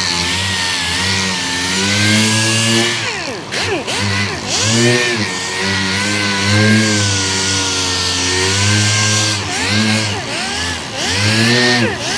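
Power sander running against a primed fender panel, its motor pitch sagging and recovering over and over as it is pressed into the panel, with a hiss from the sanding.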